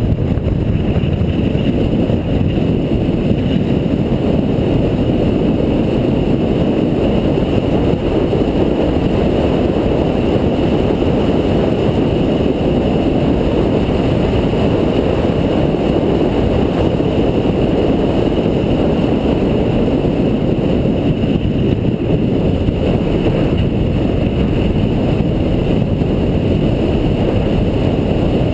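A car being driven steadily, heard from an onboard camera: a constant, loud rumble of engine, tyres and wind with no marked revving or changes.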